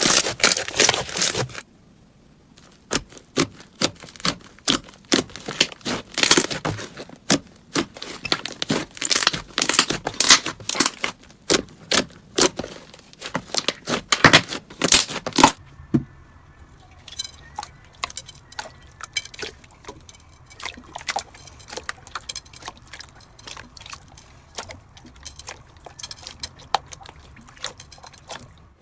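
Slime being squeezed and stretched by hand, giving a dense run of crackling pops and clicks. About halfway through it changes to quieter, finer clicking.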